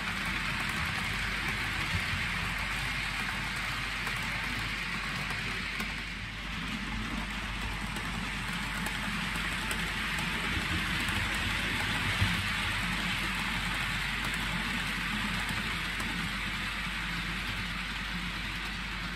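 OO gauge model train of Cavalex TEA oil tanker wagons running on the track: a steady rushing hiss of metal wheels rolling on the rails, with one sharp click about two-thirds of the way through.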